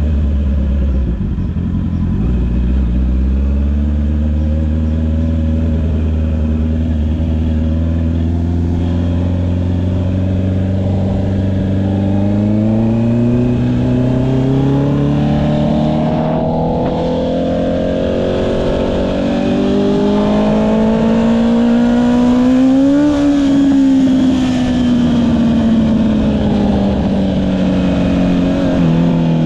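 Honda CB650R's inline-four engine through an Akrapovic exhaust, heard from the rider's seat. It holds a steady note at first, then rises in pitch for about ten seconds as the bike accelerates, and falls away again as it rolls off near the end.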